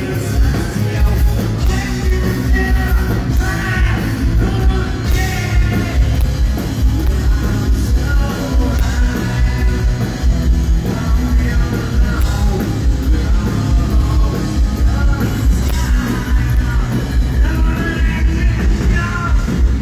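Live rock band playing loudly through a PA, with a vocalist singing and a heavy, booming bass, heard from within the concert crowd.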